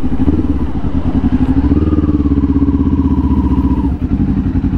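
Kawasaki Ninja 400's parallel-twin engine running steadily while the bike is ridden, with a brief dip in level near the end.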